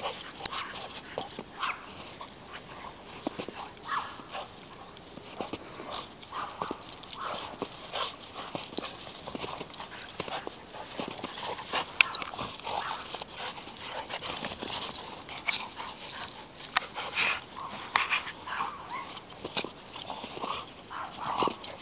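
Dogs playing rough, with short yips and whines and many quick, sharp noises scattered throughout.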